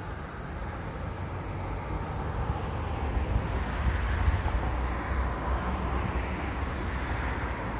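Road traffic going past: a steady low rumble of vehicles that builds over the first few seconds and then holds.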